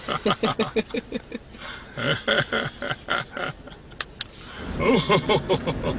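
A man laughing on his own in rapid ha-ha-ha pulses, in several bursts with short pauses between: deliberate laughter-yoga laughing. It is heard inside a moving car, whose low engine and road rumble rises near the end.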